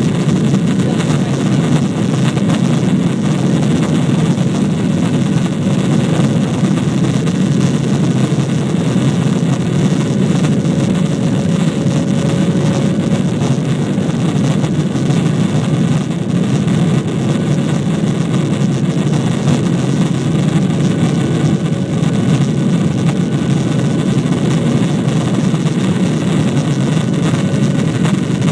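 Jet airliner's engines and airflow heard from inside the passenger cabin during the climb after take-off: a loud, steady deep drone with a faint steady hum above it.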